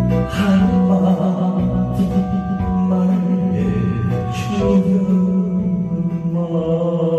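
A man singing into a handheld microphone over musical accompaniment, holding long drawn-out notes.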